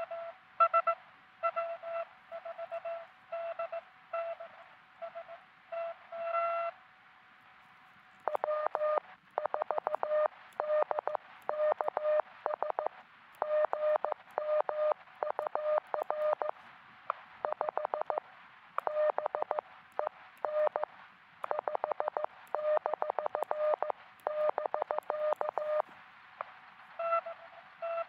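Morse code (CW) tones from a truSDX QRP transceiver. At first a higher-pitched tone is keyed at a slower pace. After a short pause, a slightly lower-pitched tone sends a long stretch of much faster Morse. Near the end the higher tone returns: two stations trading a CW exchange.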